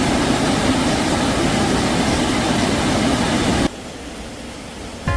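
Loud, steady rush of a mountain valley stream. About two-thirds through it cuts off abruptly, leaving a much fainter hiss.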